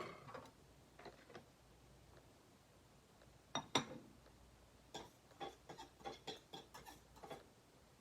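Light clicks and taps of small tools and parts being handled on a soldering bench. A few scattered clicks come first, then a louder clatter about four seconds in, then a run of about ten quick clicks at a few per second.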